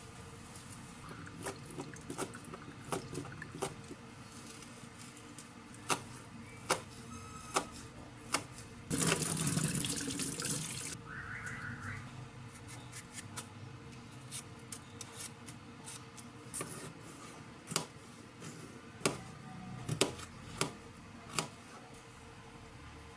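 Kitchen tap running briefly at a sink for about two seconds partway through, amid scattered sharp clicks and knocks of things being handled.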